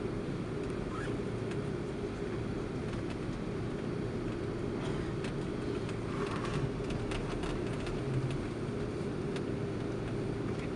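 Steady low rumble of cabin noise inside an Airbus A330-200 taxiing in after landing, with a few faint clicks.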